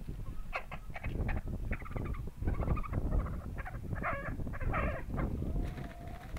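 Swedish Flower chickens squawking in a rapid run of short, harsh calls as the rooster mounts a hen, ending in one thin drawn-out note. A low rumble runs underneath.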